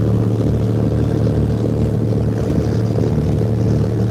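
Fishing boat's engine running steadily, a low even hum.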